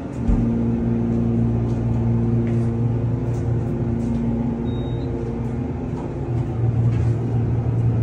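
Elevator car travelling upward: a steady machinery hum with a few held tones, which comes up about a third of a second in as the car gets moving.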